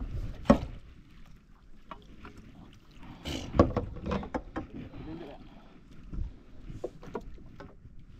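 Scattered knocks and clatter aboard a small fishing boat over a low steady rumble: one sharp knock about half a second in, then a cluster of knocks around the middle and a few more near the end.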